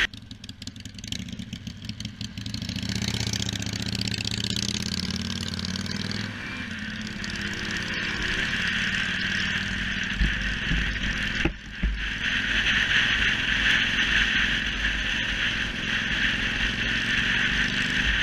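Yamaha YBR125's single-cylinder 125cc four-stroke engine running at low speed, then rising in pitch as the motorcycle accelerates, with wind rushing past the helmet camera growing louder as speed builds. A brief drop in engine sound about two-thirds of the way through, as at a gear change.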